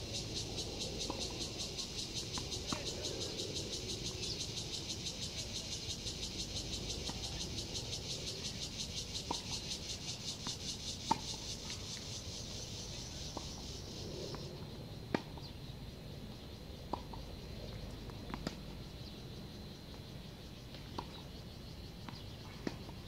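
Cicadas droning in a dense, fast-pulsing high buzz that stops abruptly about two-thirds of the way through. Over it, sharp single knocks of tennis balls struck by racket strings and bouncing on the hard court come every one to three seconds in a rally.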